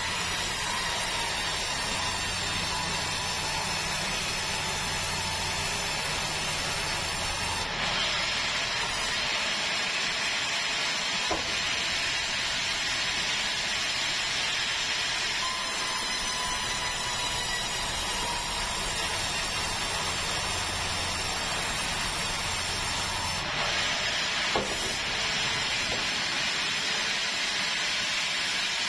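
Sawmill band saw running steadily and cutting a keruing log, a continuous hissing saw noise with a faint steady whine under it.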